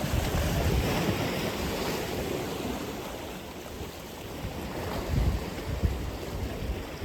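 Atlantic Ocean surf: waves breaking and washing ashore in a steady wash. It swells in the first couple of seconds, eases off, then builds again about five seconds in.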